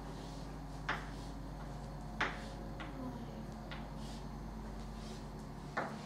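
Chalk on a blackboard as a polygon is drawn: a few short sharp taps as the chalk meets the board, about four spread through, with faint scratching of the strokes between them.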